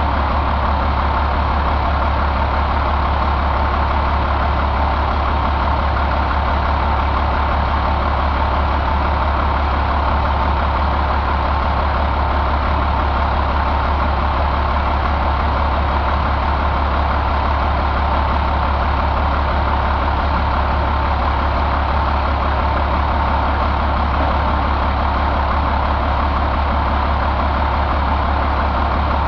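International DT466E turbocharged inline-six diesel engine running steadily, with no change in speed.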